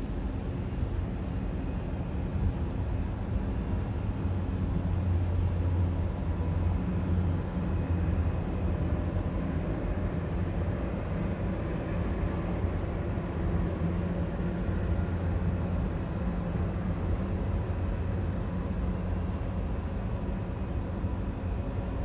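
Steady low rumble of a running vehicle, with a faint high-pitched whine that cuts off a few seconds before the end.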